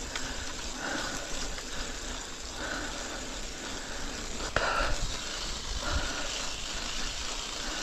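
Mountain bike riding up a rough, stony trail: steady tyre and rattle noise with a low rumble, and a sharp knock about four and a half seconds in.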